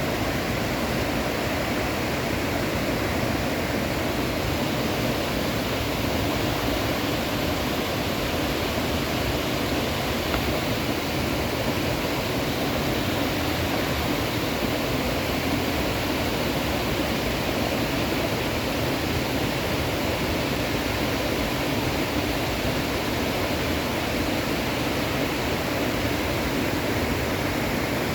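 Mountain stream rushing steadily over rocks, a constant full rush of water with no pauses; the stream is running higher than usual.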